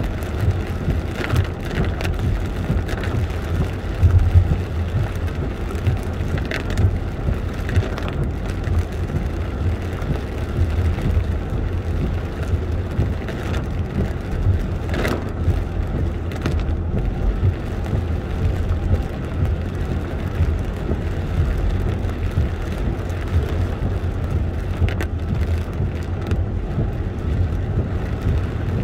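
Steady low road rumble heard inside a car driving in heavy rain, with the hiss of rain and wet tyres on the road, and a few brief swishes along the way.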